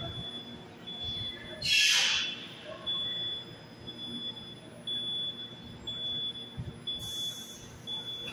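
Metro train standing at the platform, with a loud short hiss of released air about two seconds in and a fainter hiss near the end, while a thin high beep pulses about once a second.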